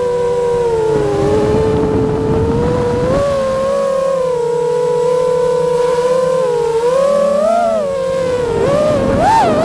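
Quadcopter drone's propellers humming steadily, the pitch wavering and swinging briefly higher twice near the end as it adjusts its flight.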